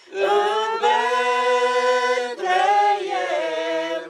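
Small group of carolers singing a Romanian Christmas carol a cappella, with men's and women's voices together. They hold one long note in the middle and break off near the end.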